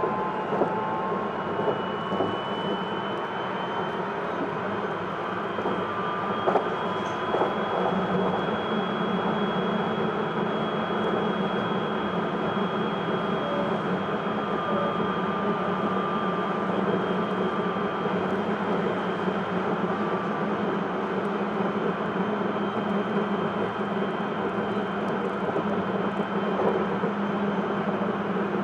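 Hokuetsu Express HK100 electric train running, heard from inside the car: a steady rumble with a high whine that rises in pitch over the first few seconds and then holds steady. A few sharp clicks come in the first several seconds.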